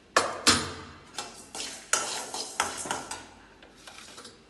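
Metal slotted spatula stirring dry-roasting lentils, dried red chillies and coriander seeds in a non-stick kadai: a run of scraping strokes with the dry seeds rattling, loudest at the start and dying away after about three seconds. No oil in the pan, so there is little sizzle.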